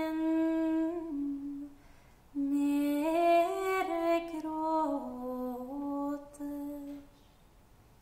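A woman humming a slow tune in long held notes that step up and down, with a short break about two seconds in and stopping about a second before the end.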